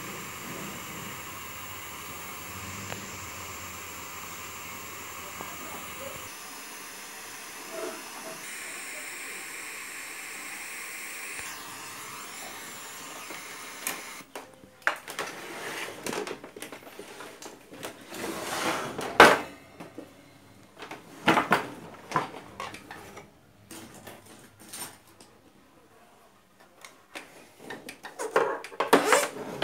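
A Sony Trinitron CRT television running with its sound working but its picture collapsed to a single line, giving out a steady hiss with faint tones. About fourteen seconds in the hiss stops as the set is switched off, and is followed by plastic knocks and clatter as the TV cabinet is handled and turned around.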